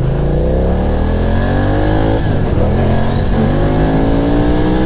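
BMW F900XR's 895 cc parallel-twin engine accelerating hard: the pitch rises, drops at an upshift about two seconds in, then climbs again to another shift near the end.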